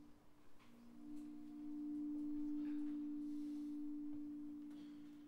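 Opera orchestra holding soft, steady low notes. The notes break off briefly about half a second in, come back, and slowly fade toward the end.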